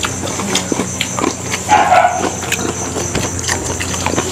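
Wet, smacking mouth noises and chewing from eating rice by hand up close, a rapid scatter of short clicks, with a short whine-like tone about two seconds in.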